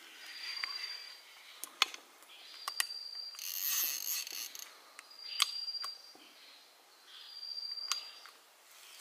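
Four sharp metallic clicks, a second or more apart, from the handling of a mechanical slingshot rifle, among rustling and a thin high whistle that comes and goes.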